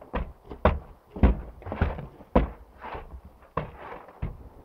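Snow shovel chopping and scraping at frozen snow on a skate ramp's deck: a series of irregular knocks and thuds, roughly two a second.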